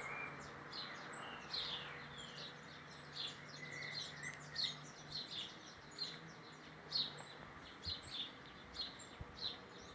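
Birds chirping faintly: a steady series of short, high chirps, about two a second, over a faint hiss.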